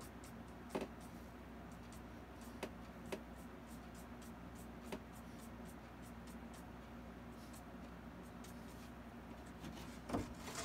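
Faint scratching of a small paintbrush stroking across a painted canvas over a low room hum, with a few light taps. A louder knock comes near the end as a hand grips the canvas.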